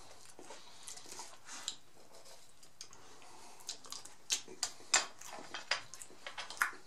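Close-miked mouth sounds of a man eating a mouthful of black rice and beans: a few faint clicks at first, then from about halfway a quick run of sharp chewing and lip-smacking clicks.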